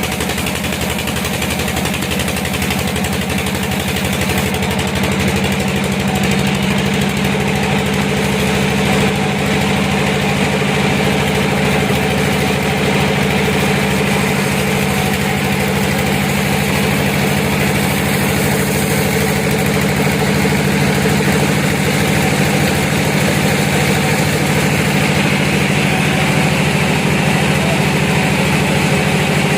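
Sawmill machinery running steadily: a continuous engine-like drone with a low hum, getting slightly louder about five seconds in.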